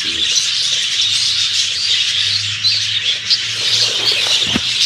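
Birds chirping and chattering continuously in a dense chorus of high calls, with a single low bump near the end.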